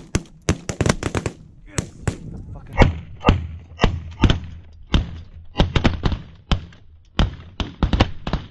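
A volley of shotgun blasts from several hunters firing at once at flying Canada geese. The shots overlap in a rapid barrage for about the first second, then go on in a steady scatter of single blasts, roughly two a second.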